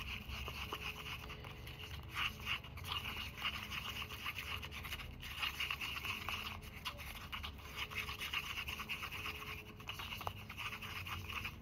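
Faint, continuous scraping and scratching of a brush stirring chalk-and-glue gesso in a paper cup, working freshly added chalk powder into the glue to thicken the ground.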